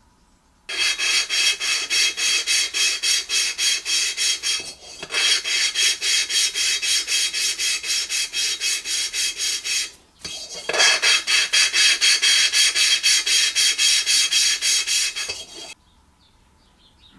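An engine valve being lapped into its seat in a Briggs & Stratton side-valve block with a suction-cup lapping stick: fast back-and-forth scraping of valve face on seat, about four strokes a second, in three bouts with short breaks about five and ten seconds in. This grinds valve and seat to a tight seal.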